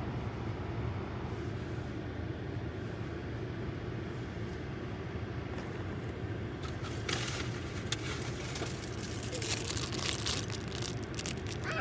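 Steady low background rumble, with a run of clicking and rustling handling noises starting about seven seconds in.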